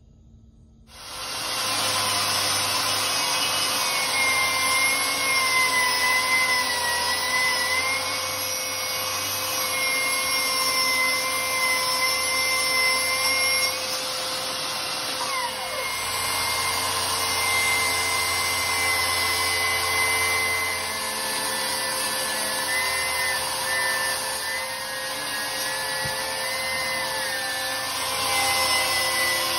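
Milwaukee M18 FUEL cordless table saw starting up about a second in and cutting wood strips with its blade tilted to 45°. The running saw and blade cutting make a loud, steady whine with a wavering pitch, which dips and glides down briefly about halfway through.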